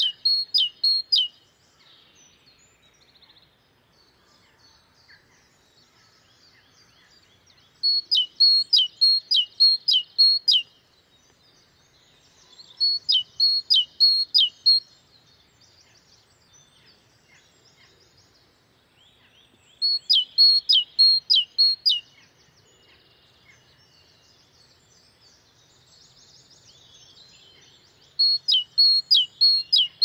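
Great tit singing its 'tea-cher, tea-cher' song: a run of repeated two-note phrases lasting two to three seconds, given five times with pauses of several seconds between runs. Faint, softer bird twittering fills the gaps.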